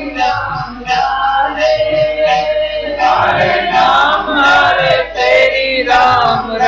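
Sikh kirtan: several voices singing a hymn together to harmonium, with tabla strokes keeping a steady beat.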